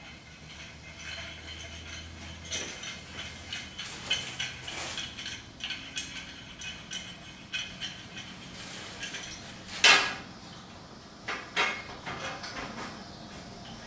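Steel pieces and clamps being handled and fitted against a steel car frame: a run of small metal clinks and taps, with one loud metal clank about ten seconds in and two lighter knocks shortly after.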